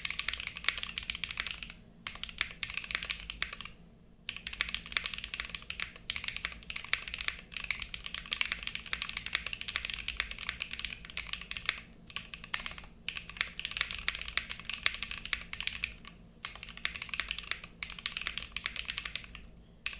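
Continuous fast typing on a mechanical keyboard with YOK Red Panda tactile switches, lubed with Tribosys 3204 and with springs bag-lubed in GPL 104. A dense run of keystroke clicks breaks off in short pauses every few seconds.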